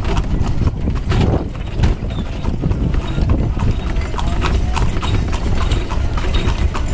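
Hooves of a carriage horse clip-clopping steadily on a paved street, over a continuous low rumble of the moving carriage.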